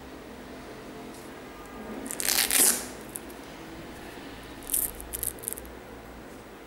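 Hook-and-loop (Velcro) ankle strap on an Air Jordan 8 sneaker being ripped open, one loud rip about two seconds in, then a few short scratchy rasps near five seconds as the strap is pulled back through its buckle.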